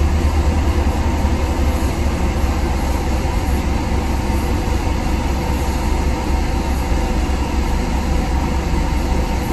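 Car's engine idling, a steady low rumble heard inside the cabin.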